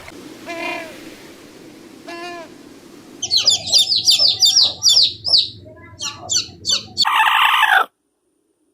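Birds chirping: two short pitched calls, then a run of rapid high chirps and twitters, ending in a louder harsh call that cuts off abruptly to silence.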